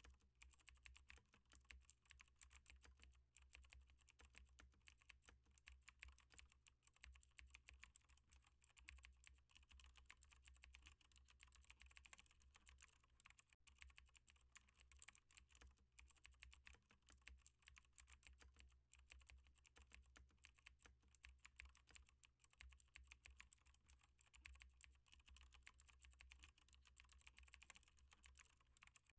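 Faint, continuous typing on a computer keyboard: a rapid, unbroken run of key clicks.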